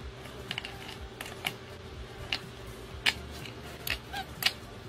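A pork rind crunching and cracking as a capuchin monkey breaks it up and chews it: irregular sharp crunches, a few each second, the loudest near the end.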